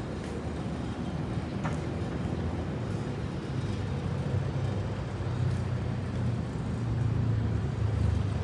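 City street traffic: a steady low rumble of vehicle engines and road noise that grows louder toward the end.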